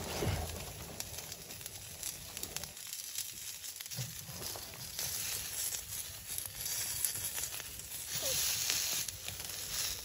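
Wire grilling basket of chicken wings handled on a wood-burning tent stove: light metallic clicks and rustling over a steady crackling hiss that swells near the end.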